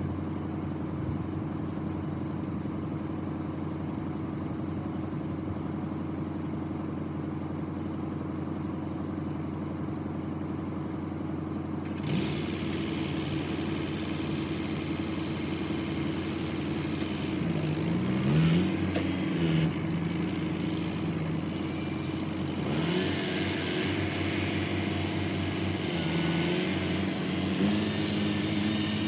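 Diesel engine running steadily with a low hum. About twelve seconds in, a higher hiss joins it. In the second half the engine pitch rises and falls several times as the revs change.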